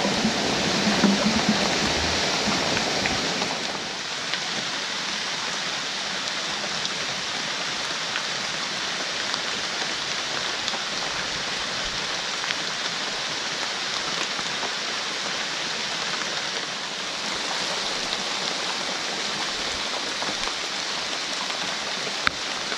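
Steady hiss of heavy rain with rushing water from a rain-swollen stream, a little louder for the first few seconds.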